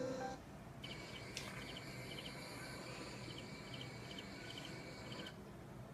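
Crickets chirping faintly in short trilled chirps, about two a second, heard through a TV speaker; the chirping stops shortly before the end.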